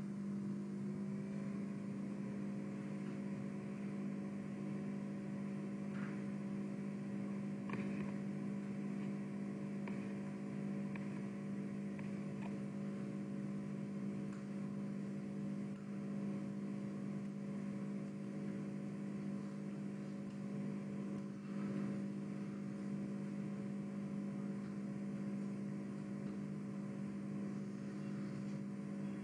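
A steady low hum with several fainter steady tones above it; in the first couple of seconds some of those tones glide upward, then hold. A few faint clicks.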